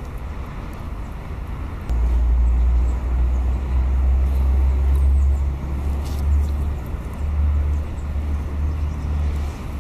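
Wind buffeting the microphone outdoors: a low rumble that sets in abruptly about two seconds in and carries on with small swells, over faint clicks and rustles.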